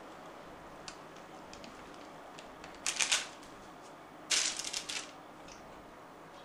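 Rustling and crackling from hands handling a piping bag over a tray lined with baking paper, in two short bursts of clicks about three seconds in and again a second and a half later.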